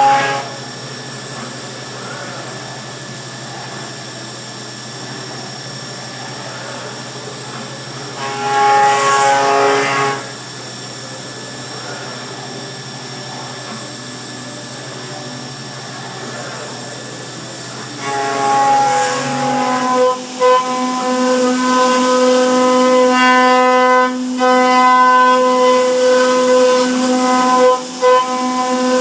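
Pentapod CNC milling machine cutting: a steady spindle hum, louder pitched bursts at the start and about nine seconds in as the cutter bites, then from about twenty seconds on a sustained high whine of the cutter in the workpiece.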